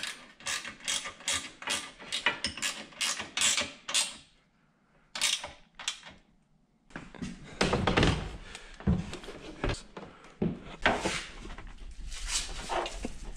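Ratcheting wrench clicking in quick regular strokes, about three a second, as a bolt is tightened through a metal frame piece. After a pause of a few seconds come irregular knocks and thuds as the UTV's plastic roof and frame are handled.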